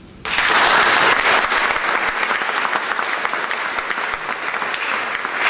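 Audience applauding, breaking out suddenly just after the start, loudest for about the first second and then holding steady.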